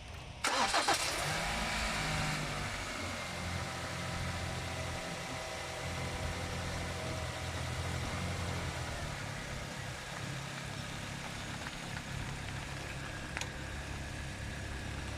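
Kia Optima's engine starting about half a second in, the revs flaring briefly and then settling into a steady idle.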